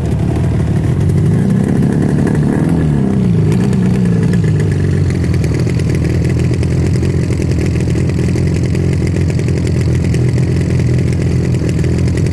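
Rajdoot Yamaha RD350 low-torque model's two-stroke parallel-twin engine, revved once about a second in, rising and falling back by about three and a half seconds, then idling steadily with a fast, even beat from its twin exhausts.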